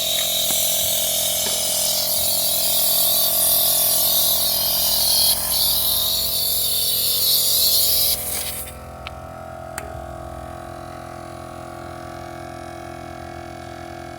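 A Gobege 12V portable air compressor runs while inflating a flat bicycle tire. A loud hissing rush of air drops off sharply about eight seconds in, leaving a quieter, steady motor hum.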